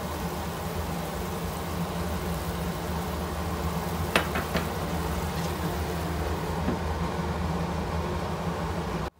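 Steady low hum and hiss of a stovetop pan cooking sliced luffa with beaten egg, with two sharp clicks about four seconds in.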